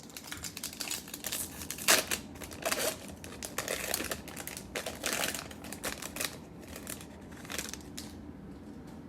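Crinkling and rustling of a Topps Chrome card pack wrapper and cards being handled, in a dense run of short crackles that dies down about a second before the end.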